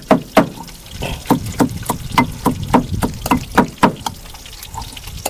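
Steady rhythmic pounding, about three strokes a second: chilli, garlic and ginger being crushed for a curry masala.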